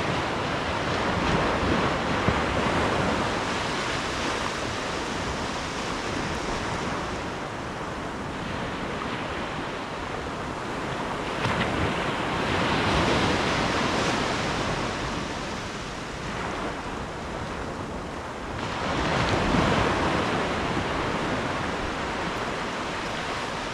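Ocean waves breaking and washing on the shore in slow surges, the loudest about a second in, around twelve to fourteen seconds in and around nineteen to twenty seconds in, with wind buffeting the microphone.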